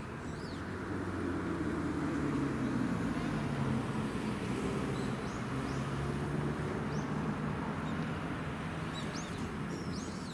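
A vehicle passing on the road. Its engine sound grows louder over the first few seconds, then eases off while slowly dropping in pitch, over steady street noise. Small birds chirp near the end.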